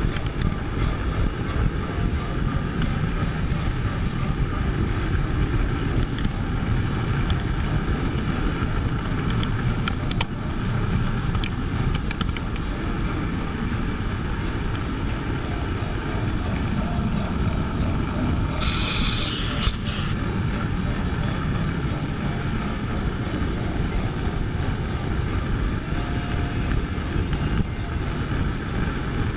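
O-gauge model trains running on the layout track, a steady close-up rumble of wheels rolling on rail, with a brief high hiss about two-thirds of the way through.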